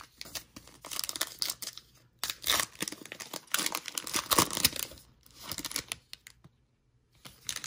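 Foil wrapper of a Panini Absolute Football card pack crinkling and tearing as it is ripped open, in irregular bursts for about five seconds that stop shortly before the end.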